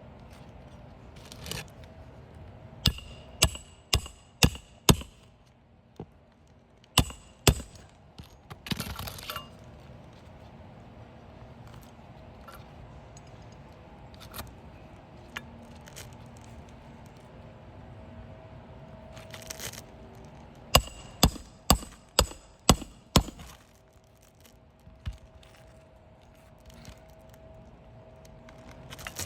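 A hammer driving roofing nails into an asphalt shingle: runs of sharp ringing strikes about half a second apart, five near the start, two a little later and about six more past the middle, with some rustling of the shingle in between.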